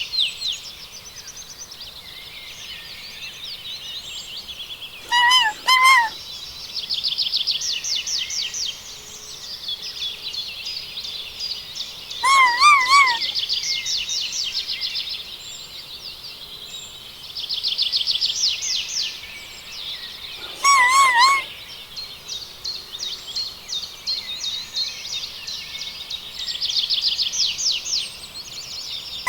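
A flock of small birds chirping and trilling continuously. A louder, warbling call cuts in as a short group of two or three notes about every seven to eight seconds.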